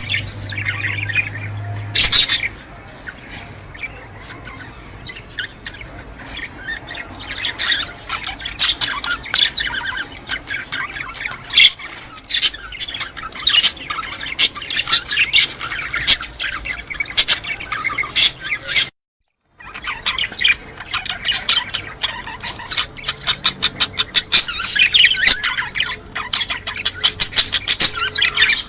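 A flock of small cage birds chattering and chirping in a dense, rapid stream of calls, the kind of breeding-stimulation recording played to encourage pairs to mate. The sound cuts out completely for about half a second roughly two-thirds of the way through.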